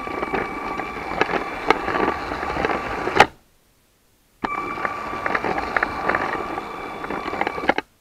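LEGO train running along its plastic track, heard from a camera riding on board: a steady electric motor whine with irregular clicks and rattles from the wheels. The sound cuts out for about a second near the middle, then resumes.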